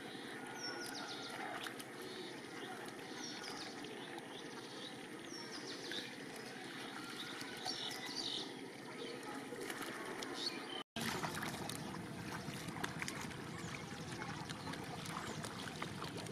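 Shallow paddy-field water sloshing and splashing as people wade and grope through it by hand, with a bird chirping repeatedly in short high calls through the first part. A brief dropout comes about eleven seconds in, after which the sloshing is fuller.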